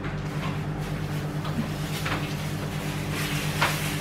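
Steady low hum under a few light knocks and clicks, the sharpest one late on, followed near the end by the crinkling rustle of a plastic bag being handled.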